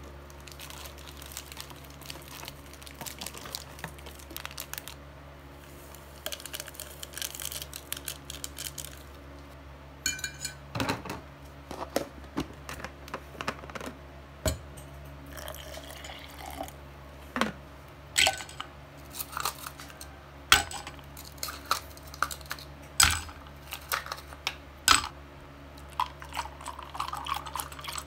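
Small objects being handled: scattered clicks, taps and clinks, a few of them sharp knocks, over a steady low hum.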